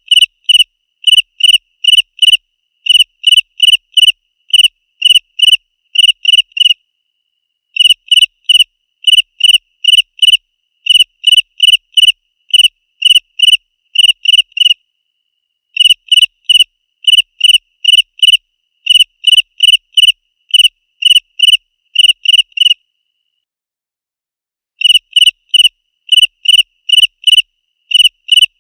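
Cricket chirping loudly: a regular run of short, shrill chirps about two a second, breaking off briefly three times.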